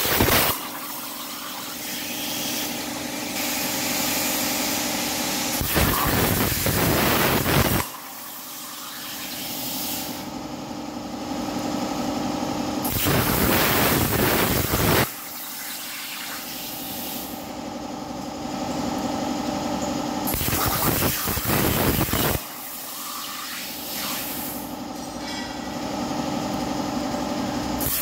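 CNC plasma cutter cutting steel sheet: a steady hiss over a hum with a few level tones, broken roughly every seven seconds by louder rushing noise lasting about two seconds.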